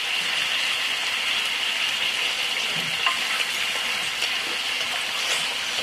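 Stir-fried vegetables sizzling steadily in hot olive oil in a pan, the flame off and the food cooking in the pan's own heat.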